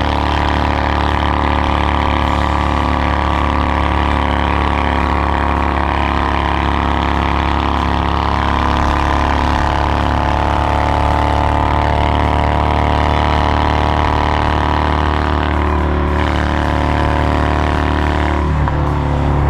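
Honda Shadow 750's V-twin engine running through its new modified fishtail exhaust, a strong, steady rumble whose note shifts near the end.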